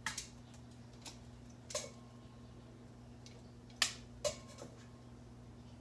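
A few light, sharp clicks and taps, scattered and irregular, from items being handled on a kitchen counter, over a steady low hum.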